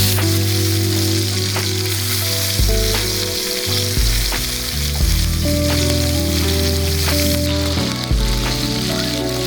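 Food frying in a hot pan, a steady sizzle with scattered crackles, under background music of held low notes that change every second or two.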